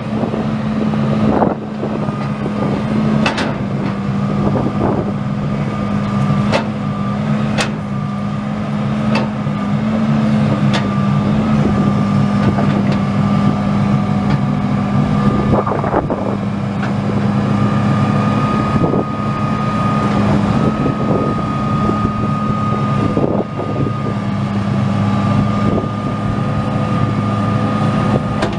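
John Deere 270 excavator's six-cylinder turbo diesel running steadily, with a steady high whine over it and occasional sharp knocks.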